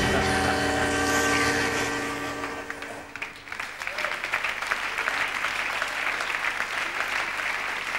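A held musical chord rings out and fades over the first three seconds. Then a studio audience applauds steadily.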